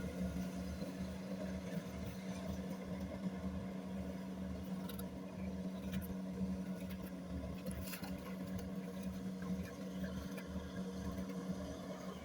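Kubota rice combine harvester's diesel engine running steadily under working load, with an even low hum and a pulsing rumble beneath it.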